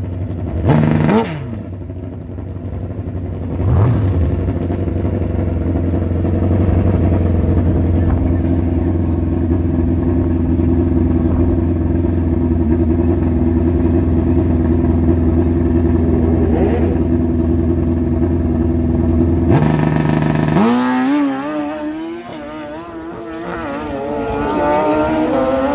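Drag-racing motorcycles on the starting line: two quick revs, then engines held at a steady high rpm for about fifteen seconds. About twenty seconds in they launch and accelerate away through the gears, the note rising and wavering, dipping and then swelling again near the end.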